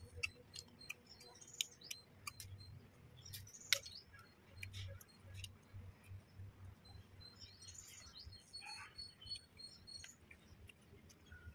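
Eating by hand: short wet smacks and clicks of chewing and of fingers mixing rice and fried fish on a banana leaf, with one sharper click a little over three seconds in. A bird chirps repeatedly in the background.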